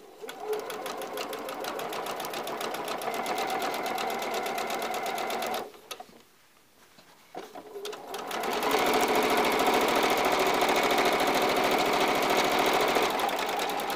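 Electric domestic sewing machine running, its needle stitching at a rapid, even rhythm. It stops for about two seconds midway, then runs again louder before easing off near the end.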